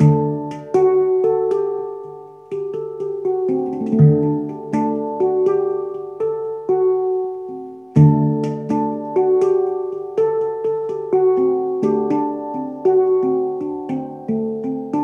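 A Hang, the steel hand-played instrument, being played with the fingers: a flowing melody of struck notes that ring and overlap, with a deep low note struck every few seconds beneath them.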